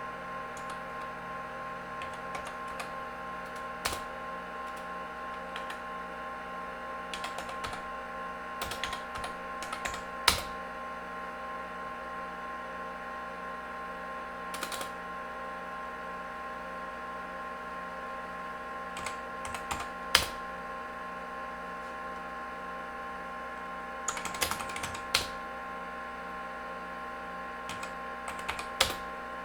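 IBM PC XT Model 286 running: a steady whine of several fixed tones from its fan and spinning hard disk, with scattered clicks and short bursts of clicking every few seconds.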